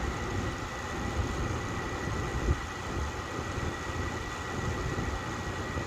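Steady background hum and low rumble with a thin, steady high whine, like a fan or running machinery; a light tap about two and a half seconds in.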